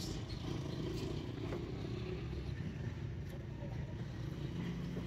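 A steady low mechanical rumble, with a few faint ticks.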